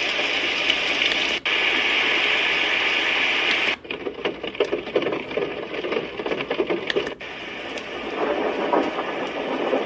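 iDealSleep white noise machine playing through its small speaker: a steady hiss, then, after a brief cut about four seconds in, it switches to a more uneven, flickering sound like running water.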